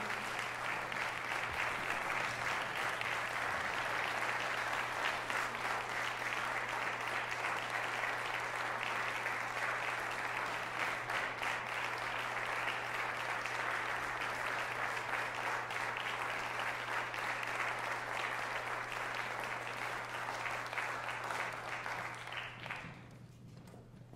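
Crowd applauding steadily, with a low steady hum underneath; the applause fades out near the end.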